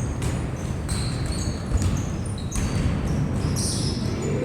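Indoor basketball game in a hall: the ball bouncing with short high squeaks over a steady background of low court and crowd noise.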